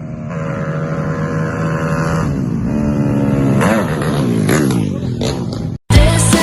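Yamaha Jupiter racing motorcycles at full throttle: the engines rev high and steady, then drop in pitch as they pass by. Near the end the engine sound cuts off suddenly and loud rock music begins.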